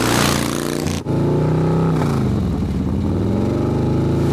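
Motor vehicle engine sound effect running steadily. It breaks off briefly about a second in, and its pitch dips and climbs back again in the middle.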